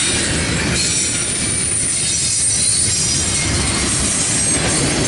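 Loaded double-stack intermodal well cars rolling past on steel wheels: a steady, loud rumble of wheels on rail with a thin, high squeal over it.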